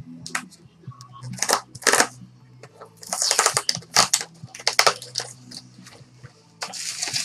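Clear adhesive tape peeled off a cardboard trading-card box's tamper-resistant seal, with the paper sleeve and lid rustling as the box is opened, heard as several short crackly bursts. Near the end a longer stretch of crinkling as the bubble wrap packed inside is handled.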